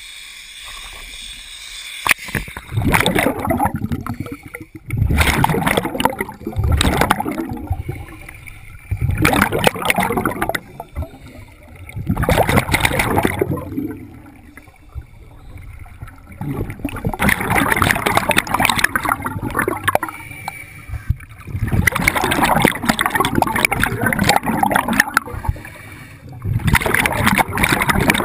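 Scuba regulator exhaust bubbles gurgling underwater in bursts of one to two seconds, each a diver's breath out, with quieter gaps between them every three to four seconds.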